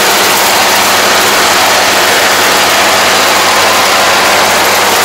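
Yanmar AE447 combine harvester running close by, its engine and machinery making a loud, even noise with a faint low hum under it while it travels on its rubber crawler tracks.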